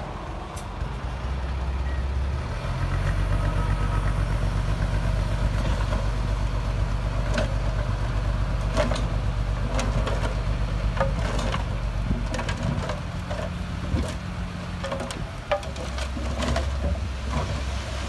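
Dump truck's diesel engine running steadily, its revs stepping up about two seconds in as it drives the hydraulic hoist to tip the loaded bed. Scattered knocks and clatter of soil and rocks sliding out of the raised bed.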